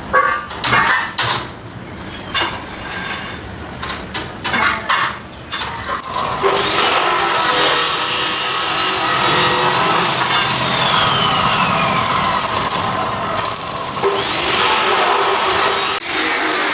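Scattered knocks and clatter, then a power tool runs steadily from about six seconds in, its whine falling and rising as it is loaded.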